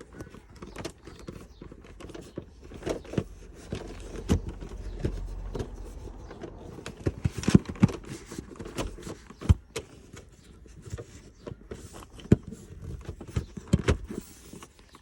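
Scattered clicks, knocks and rubbing as a replacement gear knob is twisted and pushed on a van's gear lever to line it up straight.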